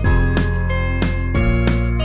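Background music: a melody of short ringing notes, about three a second, over held low notes.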